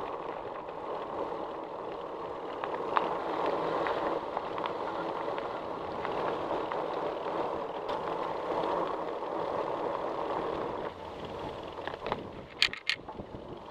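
Electric bike riding along a trail: steady rolling noise of tyres and frame, with two sharp clicks near the end.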